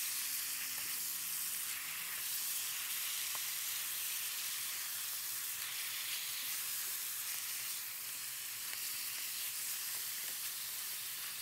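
Cabbage leaves sizzling in hot garlic oil over high heat as they are stir-fried with a wooden spatula: a steady high hiss while the leaves wilt.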